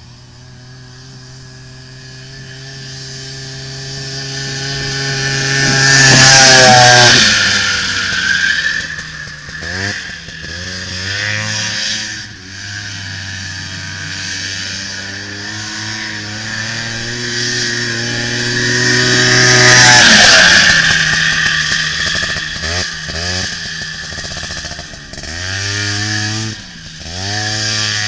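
1985 Honda Odyssey FL350 dune buggy's single-cylinder four-stroke engine running hard. It comes past twice, loudest about six seconds in and again about twenty seconds in, its pitch dropping each time as it goes by. Between and after the passes the revs swing up and down quickly as it turns.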